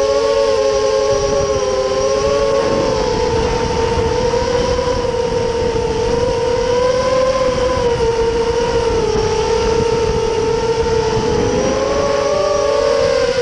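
Electric motors and propellers of an FPV drone in flight: a loud, steady whine made of several close tones whose pitch wavers gently up and down with the throttle.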